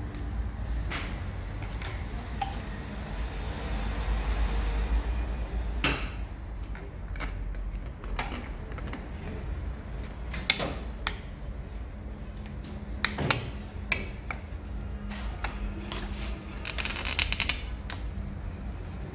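Scattered metal clicks and knocks from a Yamaha MT-07 front fork tube being handled and slid up into the triple clamps. A quick run of rattling ticks comes near the end, over a steady low hum.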